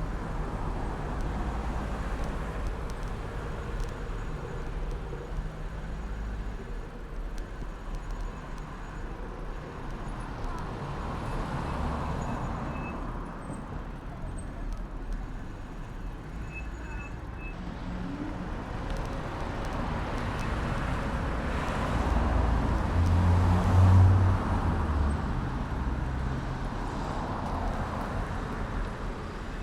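City street traffic heard from a moving bicycle: cars driving past in a steady wash of engine and tyre noise, with one vehicle passing close and loudest, with a low engine hum, about 24 seconds in.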